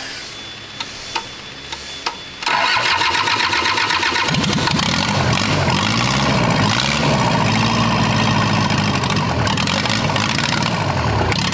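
Toyota Hilux diesel engine on a test pallet being started for the first time: a few clicks, then the starter cranks it from about two and a half seconds in. It catches a couple of seconds later and runs, its speed rising and falling, with no muffler fitted.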